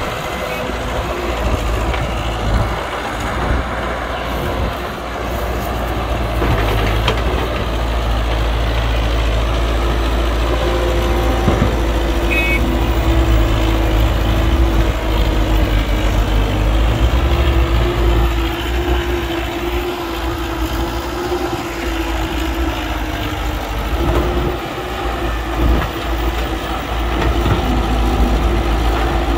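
Heavy diesel earthmoving machinery at work: a steady engine rumble, with a held whine coming in about ten seconds in and lasting almost to the end.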